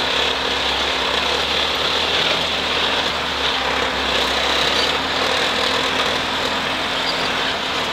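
1980 UAZ off-roader's four-cylinder petrol engine running steadily under load as it drives through snow on a forest track.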